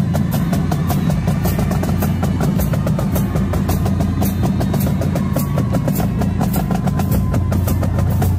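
Marching drumline of snare drums and bass drums playing the closing of a battle cadence: a fast, dense, unbroken run of strokes.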